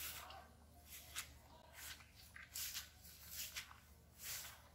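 Footsteps of a person in sandals walking through thick grass, a soft swishing rustle with each step, roughly one step every second or a little faster.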